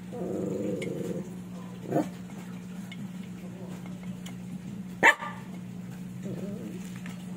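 A dog whining and barking a few times over a steady low hum, the loudest a single sharp bark about five seconds in.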